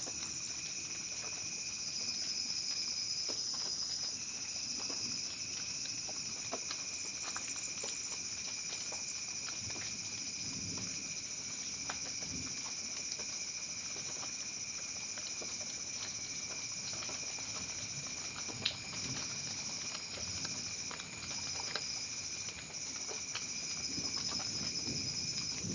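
Rain falling steadily, with scattered individual drops pattering and a continuous high-pitched hiss running underneath.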